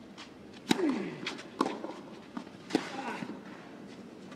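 Tennis ball struck by rackets in a clay-court rally: sharp pops about a second apart, the first and loudest with a player's grunt that falls in pitch.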